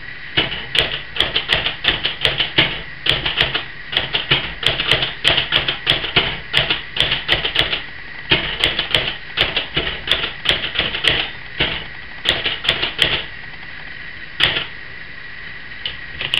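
Remington No. 10 Noiseless typewriter being typed on: a quick run of muted keystrokes, several a second, with short pauses between words and only a few scattered strokes near the end. The noiseless action makes the typing a lot quieter than an ordinary manual's clatter.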